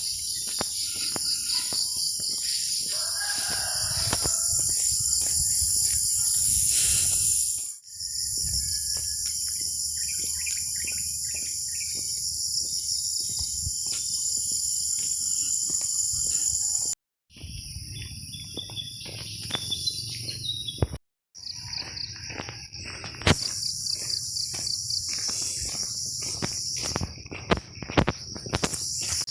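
Steady high-pitched chorus of insects, with scattered short clicks and knocks. It drops out briefly twice in the second half.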